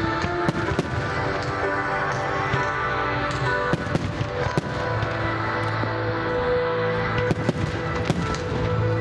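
Fireworks cracking and popping in quick irregular volleys over loud music, with the densest clusters around the middle and again near the end.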